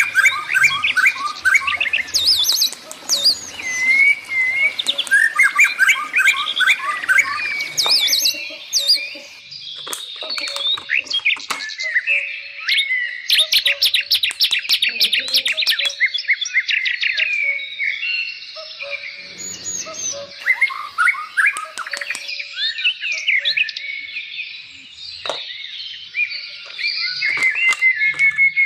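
Several small birds chirping and trilling, with quick repeated notes overlapping one another and scattered sharp clicks among them.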